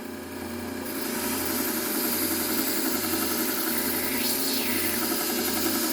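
Bucktool low-speed belt sander running with a steady motor hum; from about a second in, a hunting knife's edge is held against the running abrasive belt, adding a steady grinding hiss as the edge is sharpened.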